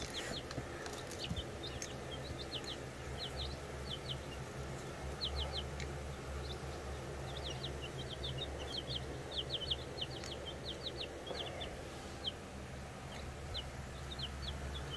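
Chicks peeping in a brooder: many short, high cheeps, often in quick runs of two to four, over a low steady hum.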